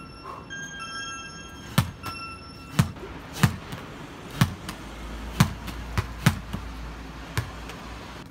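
A football thrown hard against a wall again and again: about eight sharp smacks, roughly one a second, starting a couple of seconds in.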